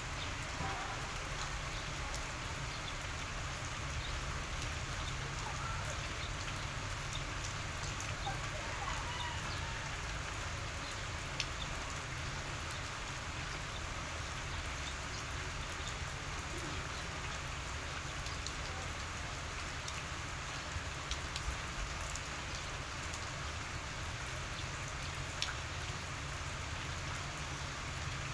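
Steady outdoor background hiss over a low rumble, broken by a few faint ticks and, in the first several seconds, a few faint chirps.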